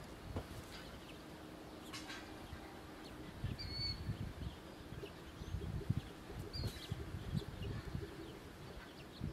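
A few faint, short house sparrow chirps, a couple around the middle, over an uneven low rumble.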